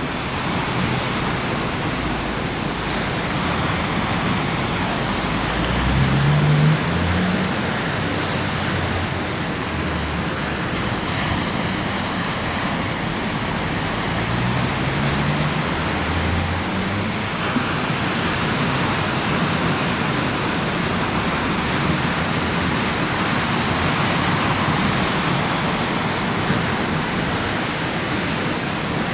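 Gusty wind rushing over the microphone and choppy river water washing, a steady loud rush. A low drone rises briefly twice, about six and fifteen seconds in.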